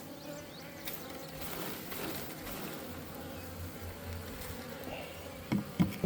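Honeybee colony buzzing steadily around an open hive box, a dense drone of many bees. Two short bumps near the end.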